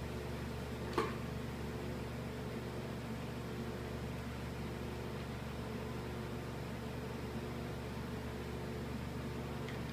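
Steady low mechanical hum, with a single sharp click about a second in.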